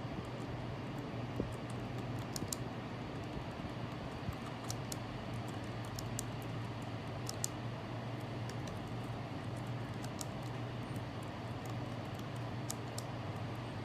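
Typing on a detachable wireless tablet keyboard with round keycaps: scattered, irregular key clicks over a steady low background hum.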